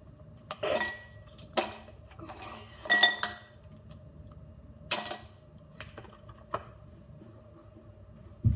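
Frozen silicone pop-it fidget toy being pressed, its iced-over bubbles popping in a string of sharp, irregular clicks and clinks, about ten of them, a cluster of the loudest around three seconds in.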